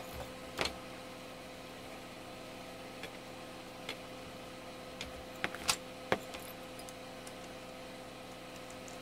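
Several small sharp clicks and taps of metal parts and a tool while the front panel and potentiometer of a bench power supply are refitted by hand, the loudest few bunched together about five to six seconds in, over a steady background hum.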